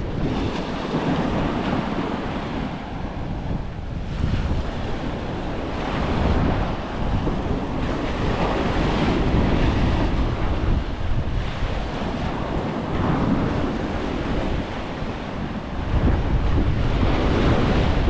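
Surf breaking and washing up a beach, swelling and easing every few seconds, with wind buffeting the microphone in a low rumble.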